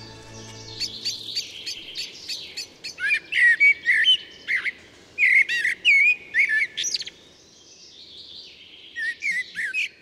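Male common blackbird singing: warbled whistled phrases with higher twittering notes. There is a pause of over a second, and another phrase begins near the end.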